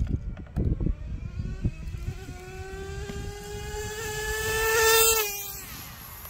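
Traxxas 4-TEC nitro RC car's small glow engine running flat out in a high whine as the car speeds toward and past: the pitch and loudness climb steadily, peak about five seconds in, then the pitch drops sharply as it passes and the sound fades away.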